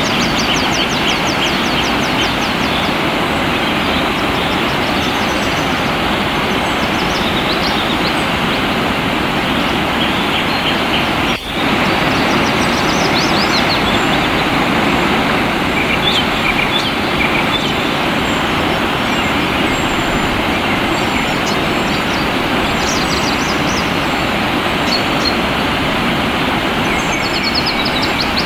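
Steady rush of flowing water, with small birds calling above it in quick, high chirping trills, several times over. The sound briefly drops out about eleven seconds in.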